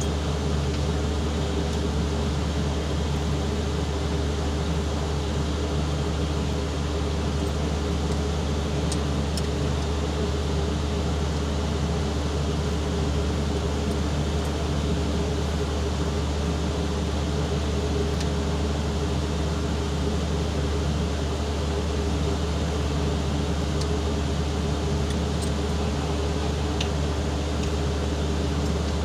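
Forklift diesel engine running steadily at an even speed, with a constant low hum and no revving.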